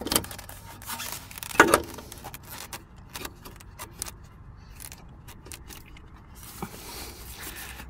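Metal clinks and knocks from working a front shock absorber's lower eye into its suspension mount, with a heavier knock about one and a half seconds in followed by a run of light clicks.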